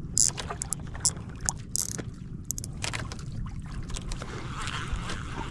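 Water lapping and slapping against the hull of a small outrigger boat, in short irregular splashes, over a steady low rumble.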